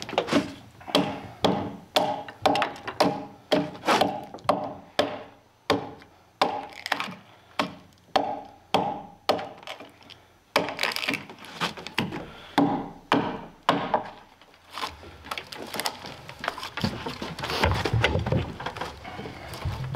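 A small joint axe chopping into a round log to cut a notch, with sharp wooden strikes about twice a second and chips splitting off. In the last few seconds the chopping thins out and a low rumble with scraping comes in.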